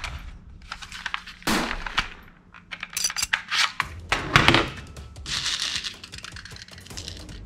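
Plastic toy pistol being handled: sharp plastic clacks and clicks as its magazine is worked, the loudest about a second and a half in and again about four and a half seconds in. Then small plastic BB pellets rattle in their tin for about a second.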